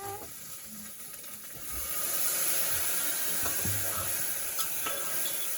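Food sizzling in a hot cooking pan. The hiss grows louder about two seconds in, and a few light knocks from stirring come through it.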